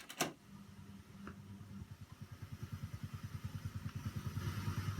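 Two sharp clicks, then a train starting off and picking up speed: a low hum with a rhythmic pulsing that quickens and grows louder.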